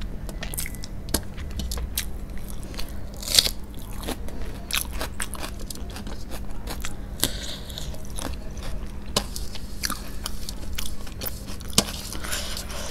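Close-miked chewing and mouth sounds of a person eating rice and curry by hand, with many short sharp clicks and crunches, plus the squish of fingers mixing food on a steel plate. The loudest clicks come about a third of the way in and near the end.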